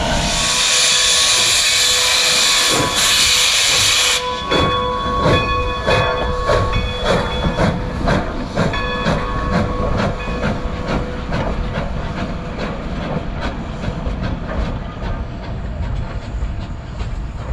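Baldwin 4-6-0 steam locomotive No. 40 pulling away: a loud hiss of steam for about four seconds that cuts off sharply, then a steady run of exhaust chuffs, about two a second and quickening, fading as the engine draws away.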